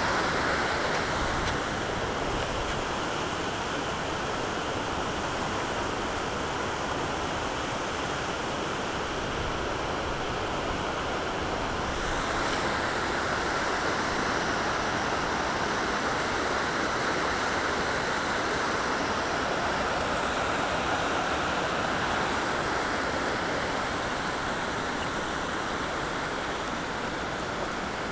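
Fast, high creek water rushing down a natural rock waterslide and falls: a steady rush of white water that doesn't let up.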